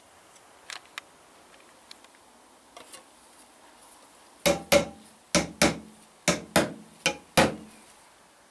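Metal paint tin knocked sharply eight times in pairs, each knock ringing briefly, as the lid is tapped shut; a few faint clicks of the stirring stick come before.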